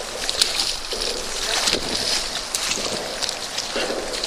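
Hooked redfish thrashing and splashing at the water's surface, with choppy current sloshing and irregular sharp splashes.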